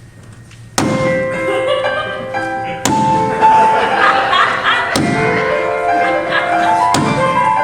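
Instrumental music starting about a second in, with a heavy accented chord on each downbeat, about every two seconds. It demonstrates stress on the first, strongest beat of the bar.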